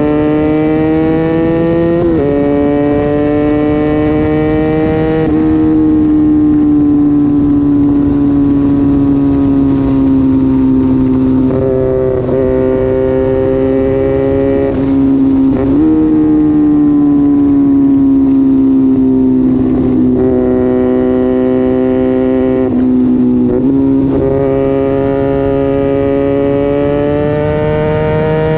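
A small twin-cylinder sport motorcycle with an aftermarket exhaust, running hard under steady throttle. Its note drifts slowly in pitch, with several brief sudden jumps along the way.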